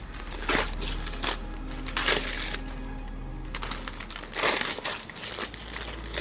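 White paper wrapping crinkling and rustling in several short bursts as a dress is unwrapped by hand, over steady background music.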